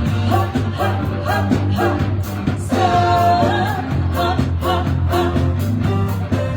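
Live band playing a song: a singer over a steady bass line, with drums keeping an even cymbal beat.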